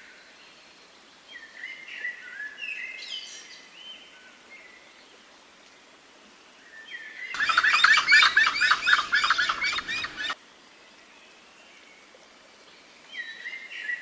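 Gray-headed chachalacas calling: a few squeaky, gliding calls in the first seconds, then about three seconds of loud, rapidly repeated chattering notes that start and stop abruptly.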